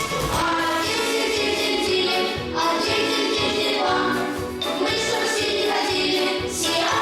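Music with singing, a choir-like vocal over a steady beat.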